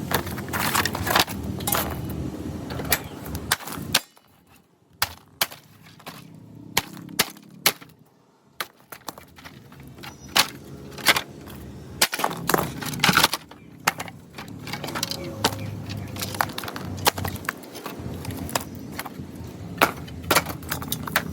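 Irregular knocks, taps and metallic clanks as a mini angle grinder is broken apart by hand for scrap to get at its motor, with short pauses between bursts of strikes.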